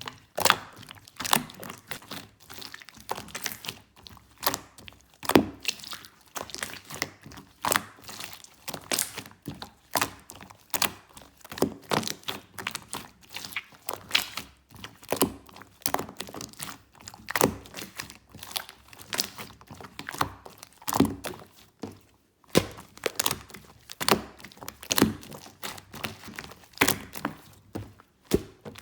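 Large clear slime squeezed and worked by hand, giving an irregular run of sharp pops and clicks, a few each second.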